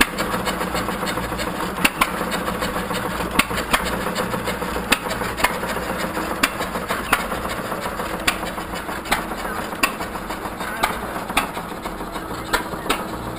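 Several 1937 John Deere hit-and-miss engines running as they turn ice cream freezers. Each engine fires with a sharp pop at uneven intervals, roughly every second or so, between coasting strokes, over a steady low hum.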